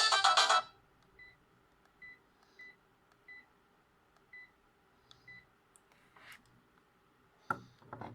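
A Sharp GX15 mobile phone ringtone cuts off just after the start, followed by faint short keypad beeps from the phone, single high tones at irregular intervals, about seven in all, as its buttons are pressed. A couple of sharp clicks come near the end.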